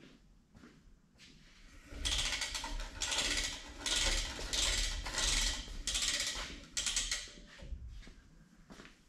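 Overhead retractable reel with its yellow line pulled down in a series of quick tugs, the ratchet clicking and rattling with each pull. It starts about two seconds in and goes on for about five seconds.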